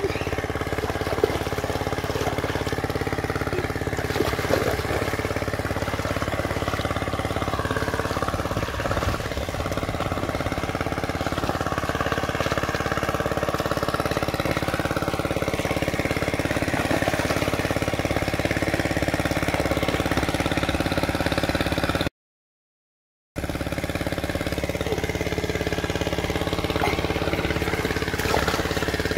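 A small engine running steadily at a constant speed, a continuous hum with several steady tones; it breaks off for about a second near the end, then resumes unchanged.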